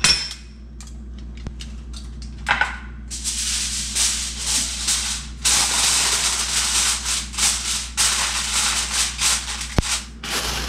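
Sheet of aluminium foil crinkling as it is laid over a foil-lined baking dish and crimped down around the edges. A few short rustles come first; from about three seconds in there is a dense crackling rustle in uneven bursts.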